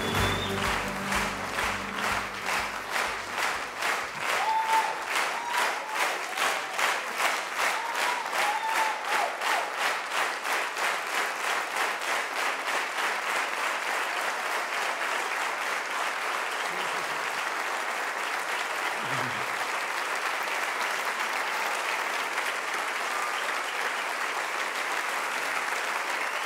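Audience applauding: for the first half it claps in unison at roughly two claps a second, with a few whistles, then it breaks into steady, unsynchronised applause.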